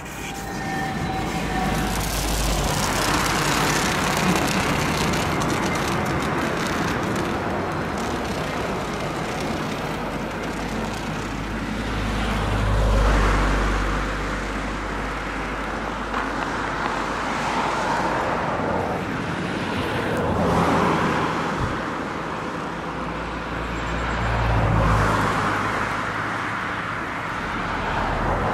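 Rhaetian Railway electric train of red passenger coaches passing over a river bridge: a steady rumble of wheels on rails that swells louder a few times as the train goes by.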